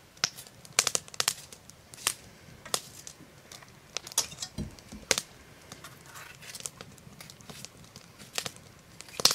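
Green bell pepper being torn apart by hand, with irregular crisp snaps and crackles as the flesh breaks. There is one dull thump about halfway through.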